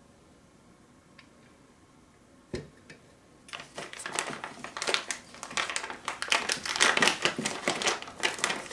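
A single thump about two and a half seconds in as the heavy metal vise base is set down on the bench, then a clear plastic parts bag crinkling and crackling rapidly as it is handled and opened.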